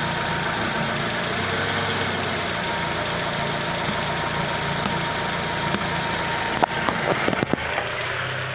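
2002 Honda CR-V engine idling steadily, with a quick run of about six sharp clicks about two thirds of the way through as the steering wheel is turned. Those steering clicks were first suspected to come from a worn strut mount bearing, which the owner concludes is not their cause.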